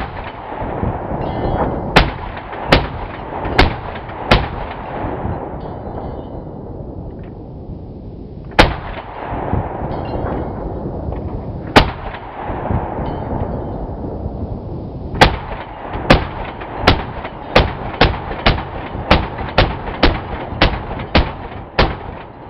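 Browning 1919 .30-calibre machine gun on a tripod firing single shots, each followed by a long rolling echo. A few shots come a second or several apart, then about two-thirds in a steady string of shots follows, each less than a second after the last.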